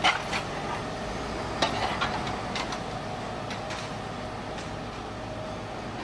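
Steady city street noise with vehicles running, crossed by scattered sharp clicks and knocks, the loudest right at the start.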